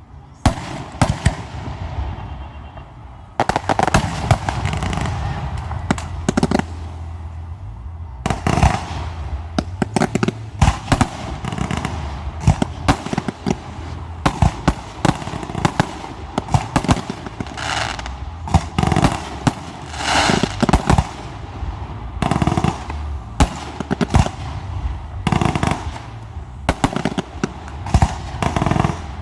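Aerial fireworks display: a rapid, continuous barrage of shell bursts and launch reports, with crackling between them, picking up about three seconds in and continuing densely.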